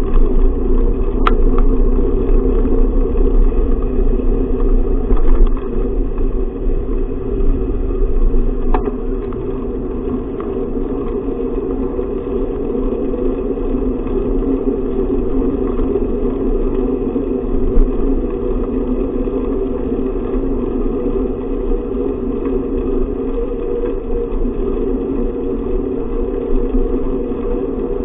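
Steady rumble and wind noise on a bicycle handlebar-mounted action camera's microphone while riding, the muffled, poor-quality sound typical of this camera on the bike mount. It is louder over brick pavers and a little quieter from about ten seconds in on a smooth bike path. There is a sharp click about a second in and another near nine seconds.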